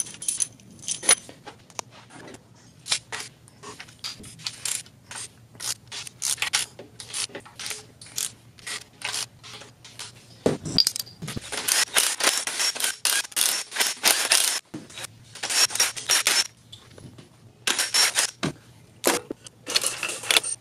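Metal clinks, clicks and rattles of tools and engine parts being handled while an LS3 cylinder head is taken apart. The sound comes as many short separate clicks, with denser bursts of rattling in the second half.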